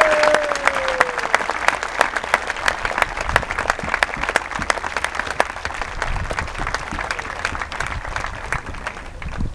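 Spectator crowd applauding, a dense patter of clapping that thins out toward the end.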